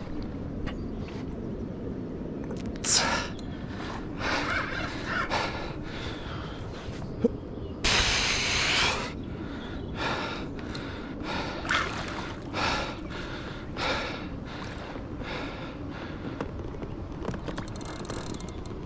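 A man breathing hard, with gasps and grunting exhales about once a second, as he strains against a hooked fish on a bent rod, over a steady low rumble. A longer, louder rush of breath or noise comes about eight seconds in.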